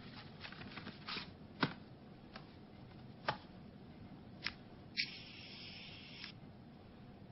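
Vinyl record being handled and put on a turntable: a few sharp clicks and taps, then a little over a second of hiss about five seconds in as the record plays on the spinning turntable.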